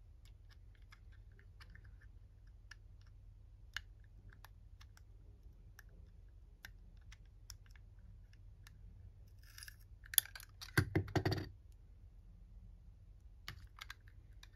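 Light clicks and taps of small plastic toy parts being handled, with a burst of louder, rapid plastic clattering about ten to eleven seconds in.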